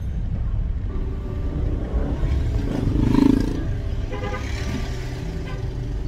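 Car being driven, a steady low engine and road rumble heard from inside the cabin. A few faint held notes sit over it, with a brief louder swell about three seconds in.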